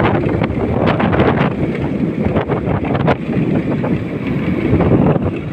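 Wind buffeting the microphone of a moving motorcycle in uneven gusts, with the motorcycle's engine running underneath.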